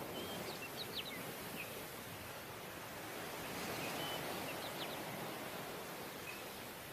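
Sea surf washing up a sandy beach as a steady hiss, with short high bird chirps now and then.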